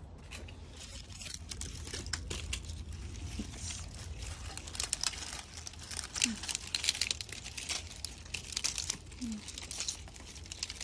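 Plastic netting and grape leaves rustling and crinkling as hands push through a netted grapevine: a dense run of small, irregular crackles, busier from about two seconds in.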